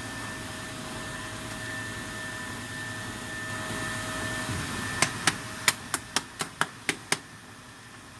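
PCB drilling machine running with a steady hiss and faint whine. About two-thirds of the way in come nine sharp clicks in quick succession, about four a second, and after them the running sound is quieter.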